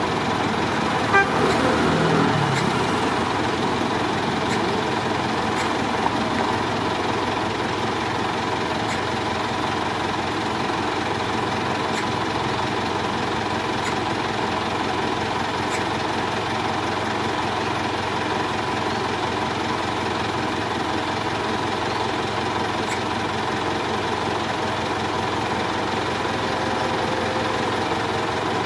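Car driving through town streets: steady engine and road noise, with a brief louder sound about a second in.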